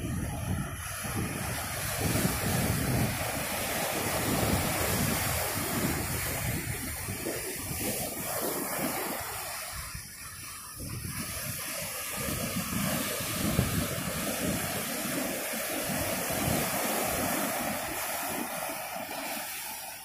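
Ocean surf breaking and washing on the shore, a dense rushing noise with a low churning rumble that swells, eases about halfway through, and swells again. Wind rumbles on the microphone.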